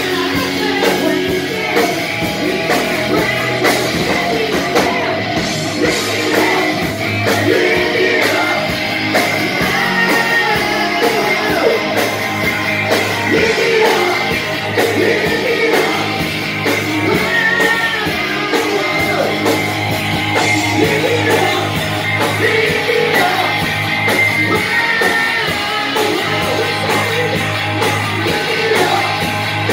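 Live rock band playing loudly: electric guitars, bass guitar and drum kit, with a singer's voice over them.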